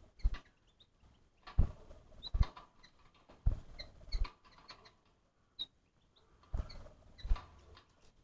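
Small animals moving about: irregular soft knocks and rustling in short bursts, with brief high peeps scattered between them.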